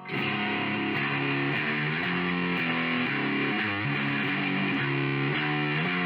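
Outro music led by guitar, playing steadily after the closing goodbye.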